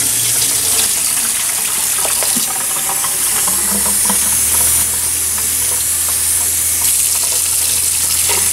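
Kitchen faucet running in a steady stream, water splashing over sliced mushrooms in a plastic container and into a stainless steel sink, with small clicks from handling the container. A low steady hum runs underneath.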